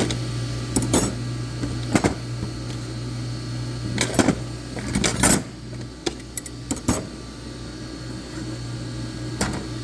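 Transmission clutch plates, steel and fiber, clinking and clacking against each other and the bench as they are handled and sorted, with about eight irregular clicks over a steady low hum.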